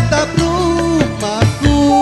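Live band music: a melody with bending pitch over bass and steady drum beats.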